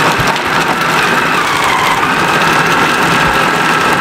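Electric food processor running steadily with a whine, its blade chopping raw chicken thigh pieces into mince.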